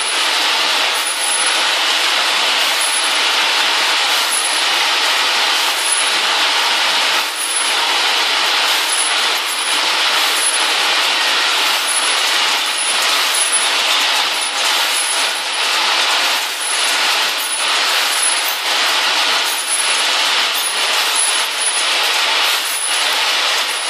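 Lighter valve plate-loading machine: a dense, steady rattle of many small metal valve parts, with fine clicks throughout.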